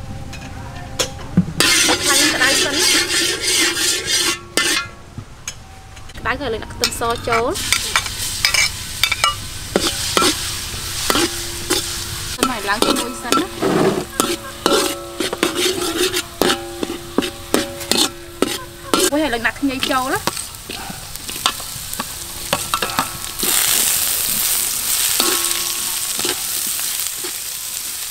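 Minced garlic sizzling in hot oil in a large metal wok while a metal spatula scrapes and knocks against the pan, which rings under the strikes. Near the end the sizzle grows louder and steadier as julienned ginger goes into the wok.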